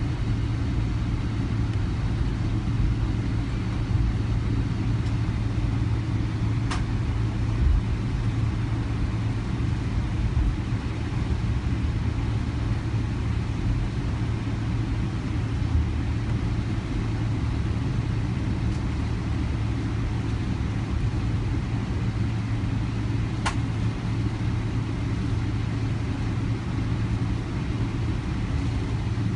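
Boeing 777 cabin noise heard from a window seat: a steady low drone of engines and airflow with a constant hum. Two faint clicks come about a quarter of the way in and again near the end.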